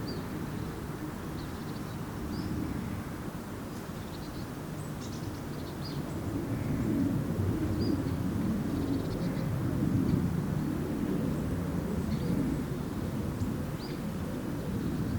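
Outdoor ambience by still water: a low, steady rumble that swells in the middle, with short high bird chirps scattered throughout.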